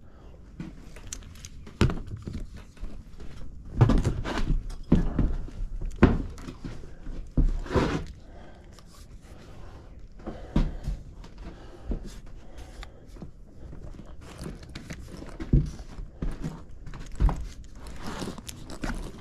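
Irregular footsteps and thuds on wooden attic joists as a person steps from joist to joist, with scattered knocks throughout.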